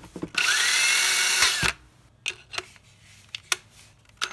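Handheld power drill spinning a 3-inch mini lathe chuck held in its jaws, in a test run of just over a second. The motor's pitch rises as it spins up and falls as it stops. A few light clicks from the drill and chuck being handled follow.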